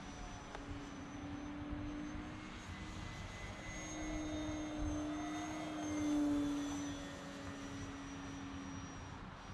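Radio-controlled model airplane's motor and propeller droning steadily overhead. The drone rises slightly in pitch and swells to its loudest about six seconds in as the plane passes closer, then settles back.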